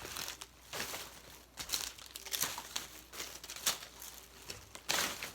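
Plastic packaging being crinkled and crumpled by hand in a series of irregular rustles, the loudest near the end.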